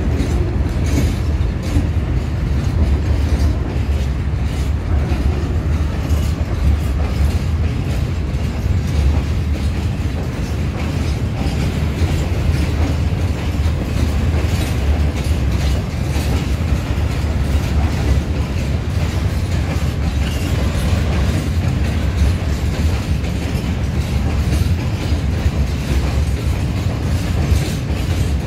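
A freight train of empty open wagons rolling past behind a pair of Soviet-built diesel shunting locomotives (TEM2 and 15D). The low diesel engine rumble runs throughout under steady clickety-clack of wagon wheels over the rail joints.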